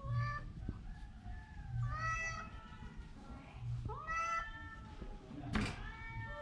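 Cat meowing three times, the calls about two seconds apart, followed about five and a half seconds in by a short, sharp noisy burst.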